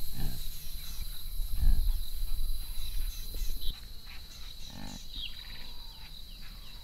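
Warthogs grunting a few short times over a steady high insect drone. A low rumble drops away a little past halfway.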